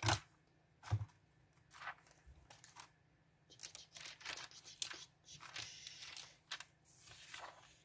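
Small paper embellishments and cards being handled and sorted through: irregular rustles and crinkles, with two light knocks in the first second.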